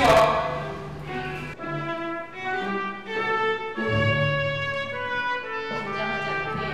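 Slow background music with long held notes that change about once a second.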